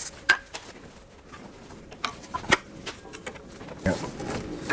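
Scattered small clicks and taps of a hand tool and gloved hands working on metal transmission cooler lines and their rubber hoses, with a sharp click a little after the start and another about two and a half seconds in.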